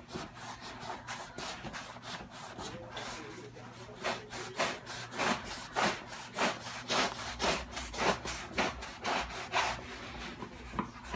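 Smooth-bladed kitchen knife sawing back and forth through a roll of paper towels, a rasping stroke with each pass of the blade, steadier and louder from about four seconds in at roughly two strokes a second.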